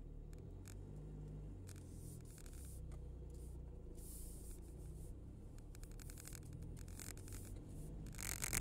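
Faint outdoor ambience: an uneven low rumble, with a few soft rubbing noises about halfway through and again near the end.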